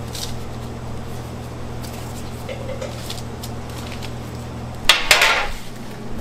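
Bakery kitchen work: a steady machine hum with light scattered clinks, broken about five seconds in by a brief loud rush of noise, after which the hum stops.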